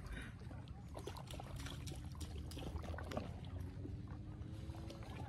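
Lake water lapping and trickling at the rocky shore, with a low rumble and a few small clicks.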